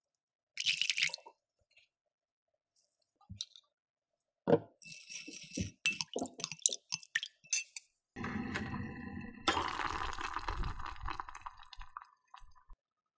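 Seasoning sauce being made in a glass bowl: a short pour of water into the soy sauce about half a second in, then a metal spoon clinking and tapping against the glass as red pepper powder and other seasonings go in. From about eight seconds come a few seconds of steady stirring, the spoon scraping and swishing around the bowl to dissolve the sugar.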